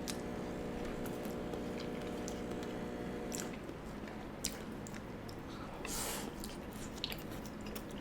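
Close-up chewing of cheese-and-sauce-covered animal fries, with wet mouth clicks and a few soft crunches. A steady hum runs through the first three and a half seconds, then stops.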